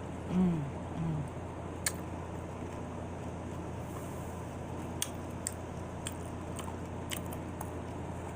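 Eating nachos: two short falling "mm" hums in the first second, then quiet chewing with a few sharp crisp clicks from the tortilla chips, over a steady low hum.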